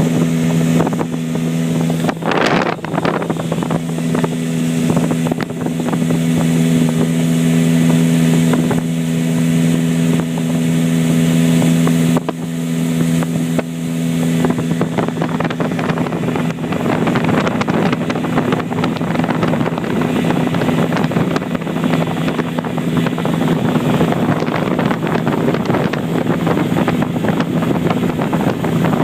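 Motorboat engine running at a steady speed, a continuous drone with a strong held pitch. Wind buffets the microphone, more heavily in the second half.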